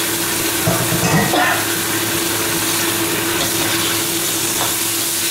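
Eggplant pieces sizzling in oil and oyster sauce in a wok while a metal ladle stirs and tosses them, with a few scrapes and knocks of the ladle against the wok about a second in. A steady hum runs underneath.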